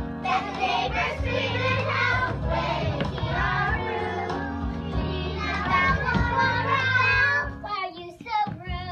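Two children singing a song together over musical accompaniment, with a short break in the singing near the end.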